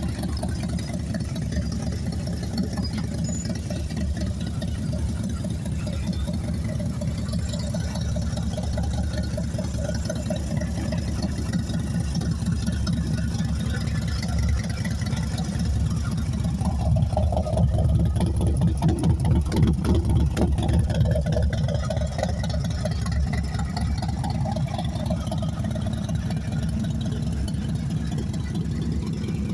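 Harley-Davidson FXDF Fat Bob's air-cooled V-twin engine idling steadily, getting louder for a few seconds around the middle.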